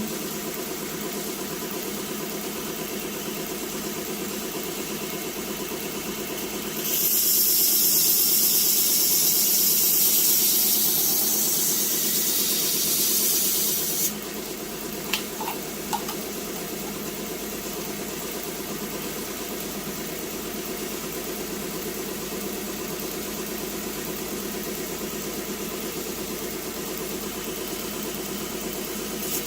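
Electric sharpening machine's motor running steadily. About seven seconds in, a steel knife blade is ground against the abrasive for about seven seconds, adding a loud high hiss. Two light clicks follow.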